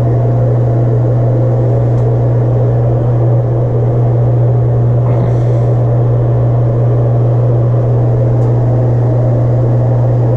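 Broan bathroom exhaust fan running on its newly installed replacement motor, pulling air with a steady low hum.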